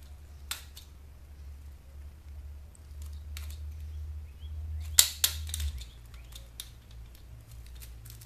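Sharp plastic clicks and snaps from a portable DVD player's plastic housing being pried and worked at by hand to free its speakers. The loudest snap comes about five seconds in, with a smaller one just after, over a steady low hum.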